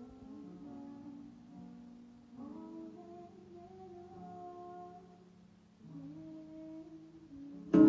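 Quiet, soft music of long held notes, in two phrases with a brief break about six seconds in.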